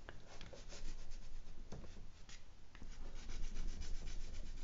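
Chalk pastel rubbed and stroked across the surface of an acrylic painting, a quick run of short strokes.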